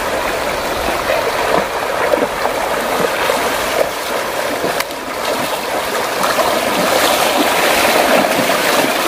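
Shallow, fast-flowing river rushing over stones, with legs splashing through the water as people wade across.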